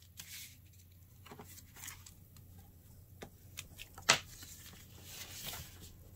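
Cardstock pieces being handled and slid across a desktop with soft rustling, broken by a few light taps and clicks as paper and a bone folder are moved and set down; the sharpest tap comes about four seconds in.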